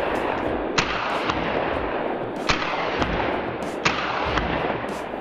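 Gunshots at a shooting range: three sharp reports about a second and a half apart, each followed about half a second later by a fainter shot, over a steady rushing noise.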